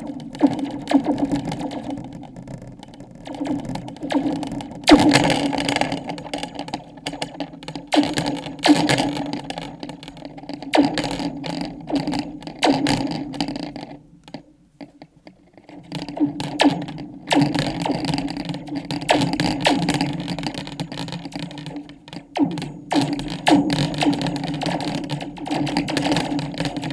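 Homemade laser sound effects: an improvised prop struck over and over, each hit a short ringing zap, in dense runs with a pause of about two seconds near the middle.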